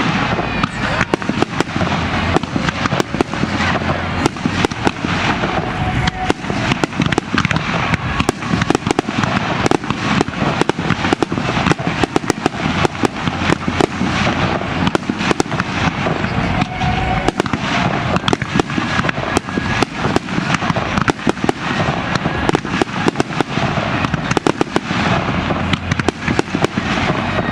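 Fireworks display in a dense, unbroken barrage: aerial shells bursting and firecracker-like reports coming many times a second.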